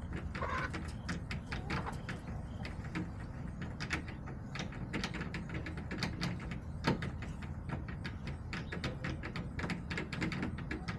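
Hens pecking at a hard surface: rapid, irregular taps and clicks, several a second. A brief soft cluck comes about half a second in.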